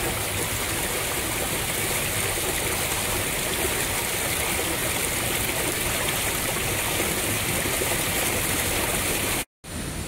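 Steady rushing of a shallow river running over rocks and boulders, cut off briefly near the end.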